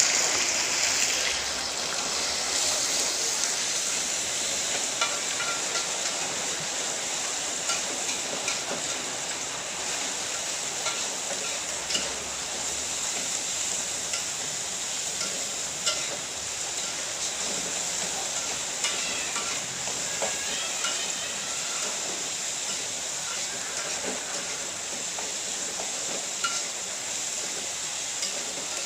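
Lumpia filling ingredients sizzling in hot oil as they are stir-fried in a pan, with occasional clicks of the spatula against the pan. The sizzle is loudest in the first second or so.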